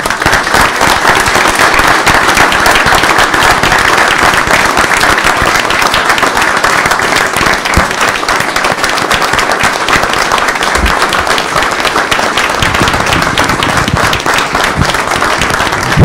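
A large audience applauding, many hands clapping at once in a dense, steady patter.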